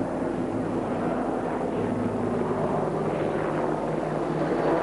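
Eurocopter Tiger attack helicopter in flight, its rotor and turbine engines running with a steady sound made of several even tones over a rushing noise.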